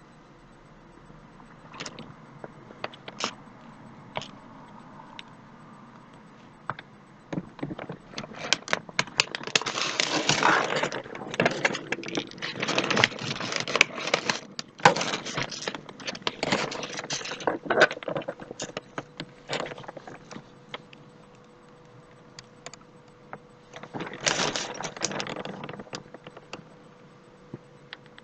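Scattered clicks, then a long spell of dense clattering and rustling from about eight seconds in to about twenty, like small hard objects being handled, with one more short spell near the end.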